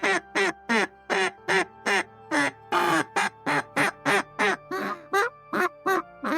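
Duck quacking over and over in quick, even succession, about three quacks a second, over light background music.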